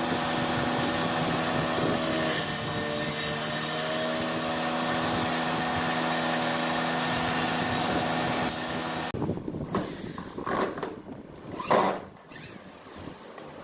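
Electric drill motor spinning a saw blade in a homemade drill-powered table saw, running at a steady whine whose pitch dips briefly about two seconds in, then switched off about nine seconds in. Scattered handling knocks and one sharp click follow.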